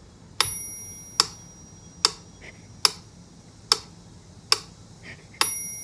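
Sharp clicks repeating evenly, a little more than once a second, seven in all; the first and the last are each followed by a short bright ring.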